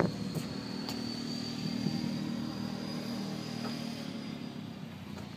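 An engine hums steadily in the background, with a sharp knock right at the start.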